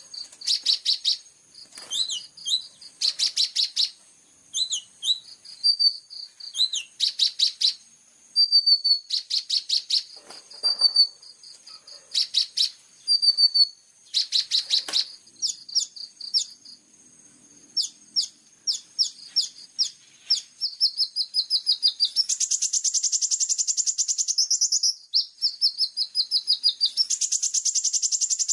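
Brown-throated sunbird (kolibri ninja) singing a varied, high-pitched song of short chirps and fast rattling trills in quick phrases. Later the phrases run into longer, denser rattles.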